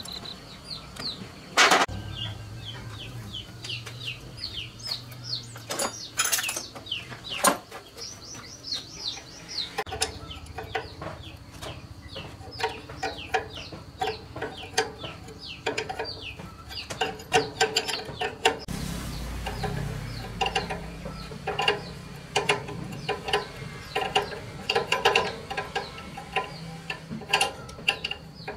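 Chickens clucking repeatedly in the background, with a couple of short bursts from a cordless impact wrench in the first seven seconds and small clinks of metal hand tools on the diesel engine.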